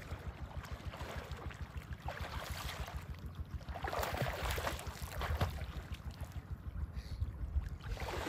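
Water splashing as a swimmer kicks at the surface, loudest about four to five seconds in, with smaller splashes before and near the end. Wind buffets the microphone throughout with a low rumble.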